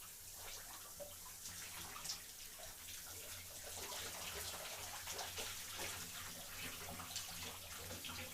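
Shower running: a steady spray of water hitting the floor or tub, with irregular small splashes and drips, in a small tiled room. The spray grows a little louder and busier about three and a half seconds in.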